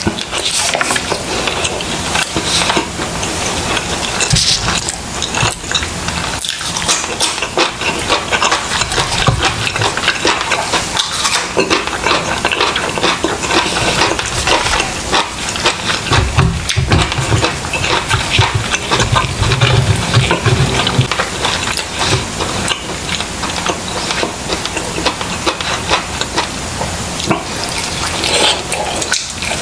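Close-miked eating: wet chewing, smacking and sticky mouth sounds from a man eating grilled chicken and fried rice by hand, with a steady run of small crackles and clicks.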